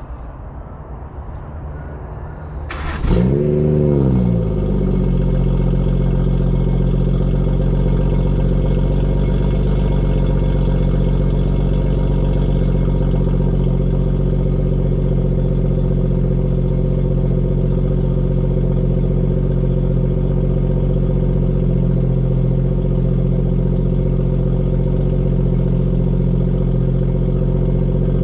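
BMW 340i's decatted B58 3.0-litre turbocharged straight-six starting up. About three seconds in the engine fires with a rev flare that rises and falls within about a second, then settles into a steady idle.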